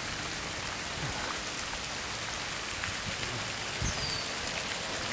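Steady hiss and patter of fountain jets splashing into a swimming pool. A short, high falling whistle comes about four seconds in.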